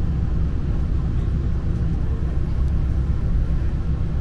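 Diesel engine of a limited express railcar idling while the train stands at the platform: a steady low rumble with a hum, heard from inside the passenger car.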